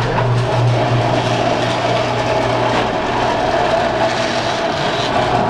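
Electric garage door opener running steadily, raising the sectional garage door on its tracks after the closing door has been tripped into reversing by the safety mechanism.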